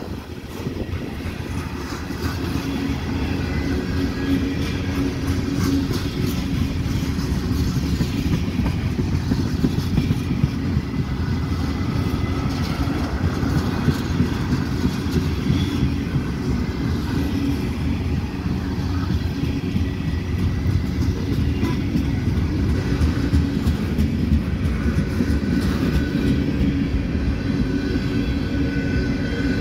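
Freight cars of a CSX mixed manifest train rolling past: a steady rumble of steel wheels on the rails, with a running clatter of clicks and knocks from the passing wheels and cars.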